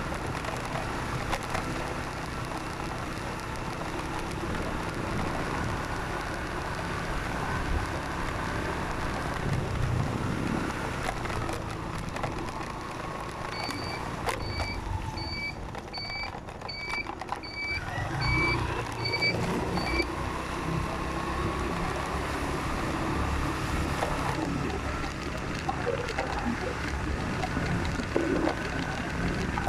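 A vehicle travelling along a road, with steady engine and road noise. Partway through, the noise eases for a few seconds. During that stretch comes a run of about nine short, evenly spaced high beeps, roughly one every 0.8 s.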